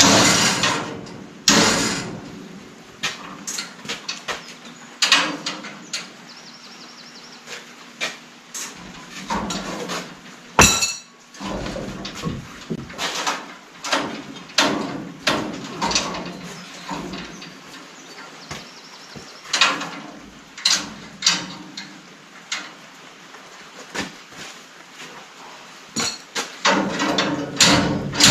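Irregular sharp metal knocks and clanks, one every second or two, from hammering and handling tools on a steel frame. A louder steady noise dies away in the first second.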